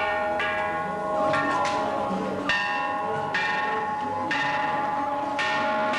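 Large hanging temple bells struck with wooden sticks, about nine strokes at an uneven pace, some in quick succession, each one ringing on so that the tones overlap into a continuous clang.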